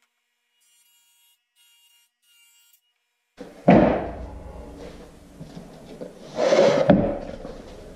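Plywood panels being handled on a wooden workbench. After about three seconds of near silence there is a sudden wooden thump with scraping and rubbing, then another stretch of rubbing about two and a half seconds later that ends in a sharp knock.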